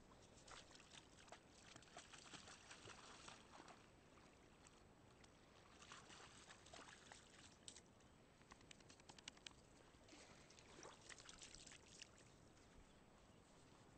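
Faint splashing of a dog's legs as it wades through shallow, calm water, in irregular bursts of small crackling splashes.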